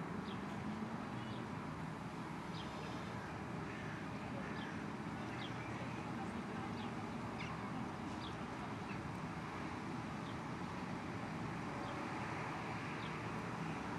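A bird repeating a short, high, falling chirp about once a second over a steady background rumble.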